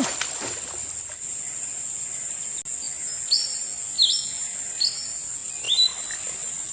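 A steady, high-pitched insect drone, with a bird giving four short whistled notes in the second half.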